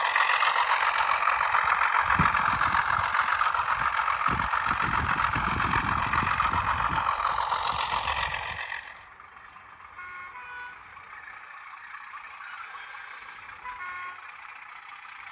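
Hornby class 31 OO gauge model locomotive passing close by, its TTS sound decoder playing a class 31 diesel engine sound through the model's small speaker over the running noise of its wheels on the track. About nine seconds in the sound drops suddenly to a faint background with a few short high notes.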